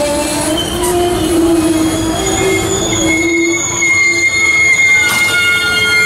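MARC bilevel passenger coaches rolling slowly past while the train slows into the station, their wheels squealing in several held tones. A lower squeal fades about halfway through as higher-pitched ones take over.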